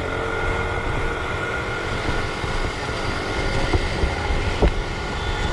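Riding a motorcycle in traffic: a steady rush of engine, road and wind noise on the microphone, with two short knocks about four seconds in.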